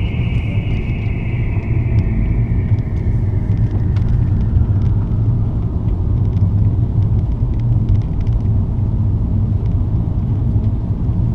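Car driving steadily on a wet highway, heard from inside the cabin: a steady low rumble of road and engine noise.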